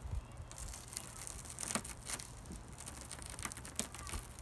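Shattered car side-window glass crackling and crunching as it is worked loose, with irregular sharp ticks of small pieces breaking away.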